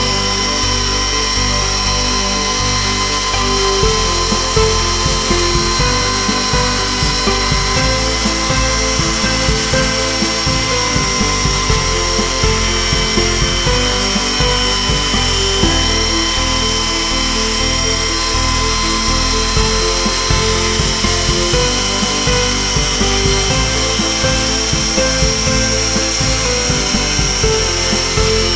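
Chainsaw mill with a 26-inch bar ripping a birch log lengthwise, the chain giving a steady high whine in the cut. Background music plays under it.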